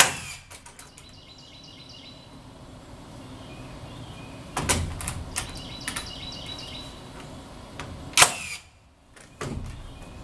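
Nails being driven into wooden roof trusses to fix a bracing board across them: three sharp strikes several seconds apart, the first right at the start, the others about halfway through and near the end, with a few lighter knocks after the middle one.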